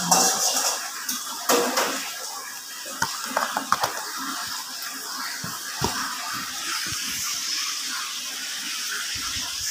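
A steady hiss with scattered light knocks and clinks of kitchenware.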